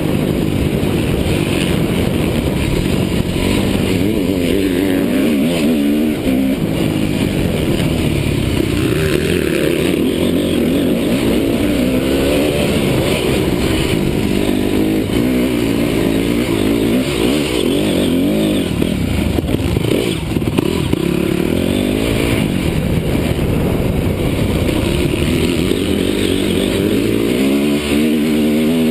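Honda CRF250 motocross bike's single-cylinder four-stroke engine running hard under the rider, its pitch rising and falling again and again as the throttle is opened and shut. Heard close up from a helmet camera.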